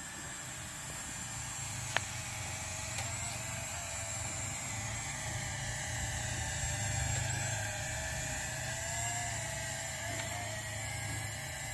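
TC-3 toy drone's small propeller motors whining in flight, the pitch wavering up and down as it is steered and holds position. A sharp click about two seconds in.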